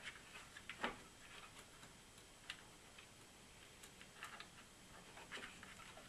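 Faint, scattered clicks and taps of small metal parts as a nut is worked onto a dehumidifier's fan motor mounting, with one louder knock a little under a second in.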